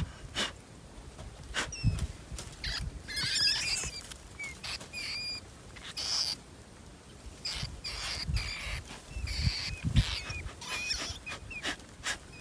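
Wire-mesh cage rat traps clinking and rattling as they are handled and fitted together, with short high squeaks in between.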